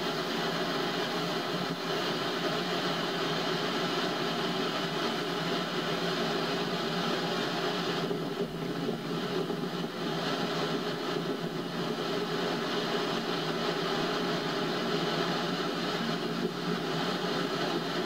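Pacific Ocean surf, a steady, unbroken roar of waves with no single breaker standing out; it eases slightly about halfway through.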